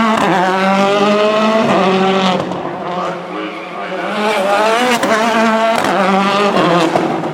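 Rally car engine revving hard as the car accelerates, its pitch climbing and then dropping at each upshift, three times over.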